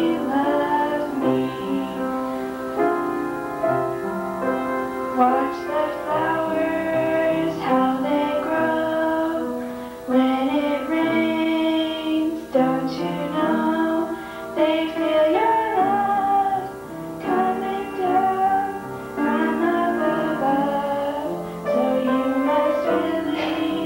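A woman singing into a microphone with children singing along, over instrumental accompaniment.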